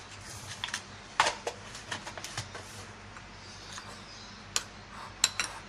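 Metal spoon clinking against a ceramic bowl while stirring flour: scattered sharp clicks, the loudest a little over a second in, with a quieter stretch in the middle.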